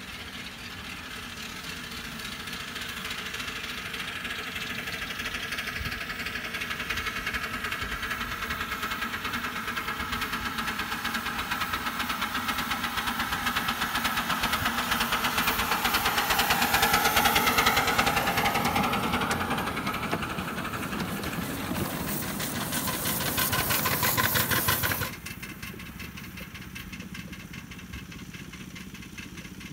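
A 7¼ inch gauge miniature live-steam locomotive working along the track with rapid exhaust beats, getting louder as it approaches and passes close. Near the end the sound cuts off suddenly to a quieter, distant train running.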